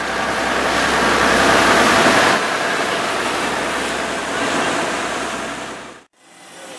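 Rushing water and wind of a boat under way, the churning wake behind the stern, over a low steady engine hum. It is loudest in the first two seconds and fades out briefly near the end.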